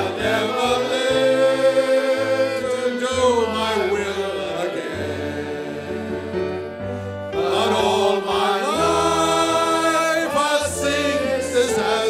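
A small group of men singing a hymn together into microphones, in two long, slow phrases with held notes. A low bass line sits underneath, moving in held steps.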